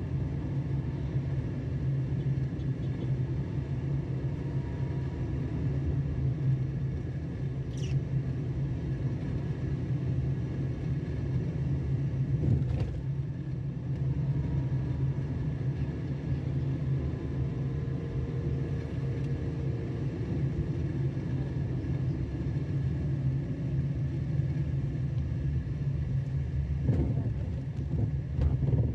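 A steady low rumble with a constant low hum running under it.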